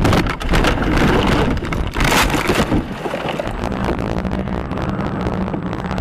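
A car running off the road onto rough ground: a loud rush of noise thick with clatters of gravel and dirt hitting the body, a heavier burst about two seconds in, then a steadier rumble as it rolls on through the dust.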